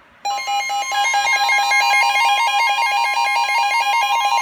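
Two weather radios sounding their alert at once for a severe thunderstorm warning. One holds a long steady warning tone while the other beeps rapidly, about seven beeps a second. Both start together abruptly just after the start.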